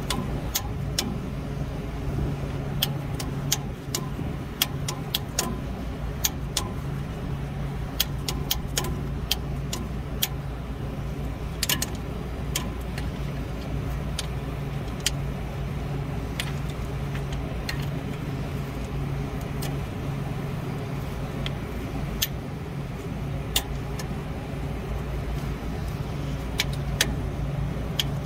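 Steady low machine hum, with scattered sharp metallic clicks from a tubing cutter worked back and forth part-way round a copper refrigerant line.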